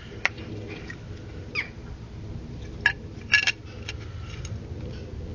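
A few sharp metal clinks and taps as the Copeland compressor's removed valve plate and head are handled, the loudest about three seconds in.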